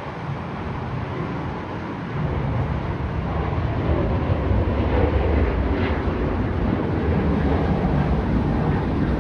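A passing train rumbling, growing louder about two seconds in, with a brief high squeal partway through.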